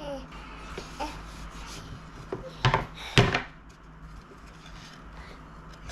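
Two brief clusters of knocks on a hard surface, close together about three seconds in, with a baby's faint short vocal sounds before them.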